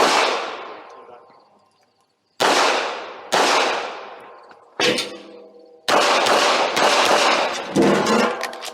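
Handgun shots fired during a competition stage: single shots about a second apart, each with a short echoing tail, then a fast string of shots in the last few seconds.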